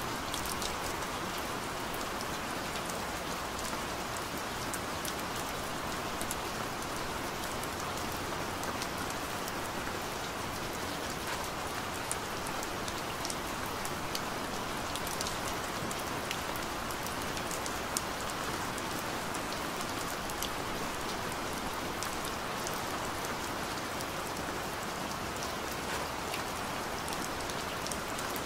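Steady rain falling on a surface: an even hiss with many small, sharp drop ticks scattered through it.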